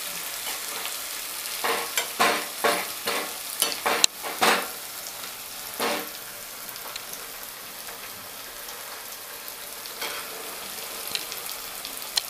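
Corn kernels deep-frying in hot oil in a steel pan, a steady sizzle. A wire spider strainer stirs through them, giving a quick run of about eight scraping strokes between about two and five seconds in, and one more near six seconds.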